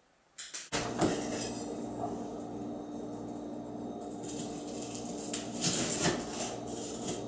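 A sharp kitchen knife cutting through a slab of crispy puffed-rice and marshmallow bar on a wooden cutting board: a run of crackling crunches and blade knocks on the board, thickest a little past the middle, over a steady low hum.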